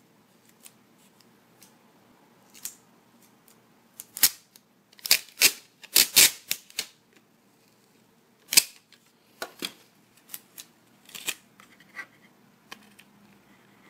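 Sticky tape pulled off the roll of a handheld tape dispenser and torn off on its cutter: a series of short, sharp rips, loudest in a cluster a few seconds in, then a few quieter ones.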